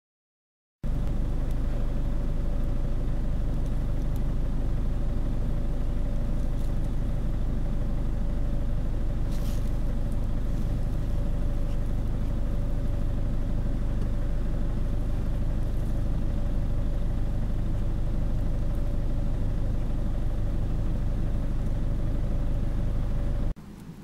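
A motor vehicle's engine running steadily: a loud low rumble with a constant hum. It cuts in about a second in and drops away suddenly just before the end.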